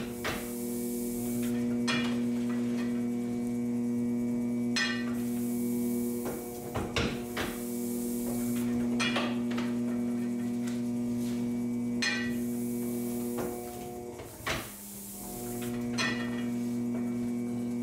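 Antique flywheel-driven platen printing press running, with a sharp clack every two to three seconds as it cycles through impressions on envelopes. A steady hum runs beneath.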